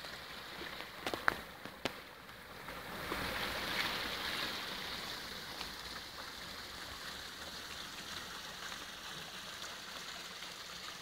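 Water from an artificial rock waterfall pouring steadily into its pool. A few sharp clicks sound a second or two in.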